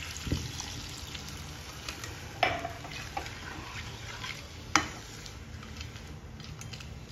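Water poured into a hot kadai of fried mutton masala, sizzling, then stirred in with a spatula, with a few sharp knocks of the spatula against the pan.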